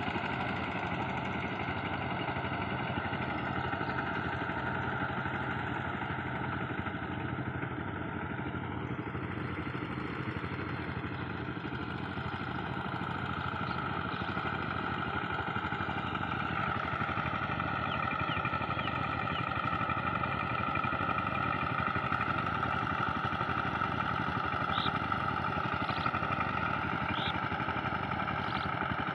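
Engines of two-wheel power tillers running steadily as the machines work a flooded paddy field. A few short high chirps come in near the end.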